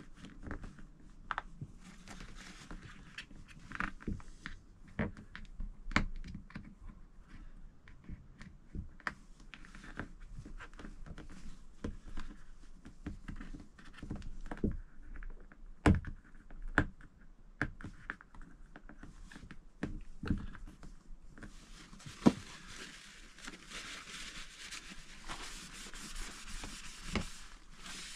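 Fingers pressing and working flexible caravan window trim into the frame's channel, giving scattered small clicks and knocks. Near the end, a steady rustling as a tissue is rubbed along the frame.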